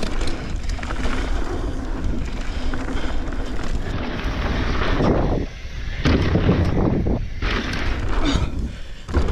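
Wind buffeting the microphone and tyres rumbling over dirt as a mountain bike rides a jump trail. The noise drops away briefly about halfway through and again near the end.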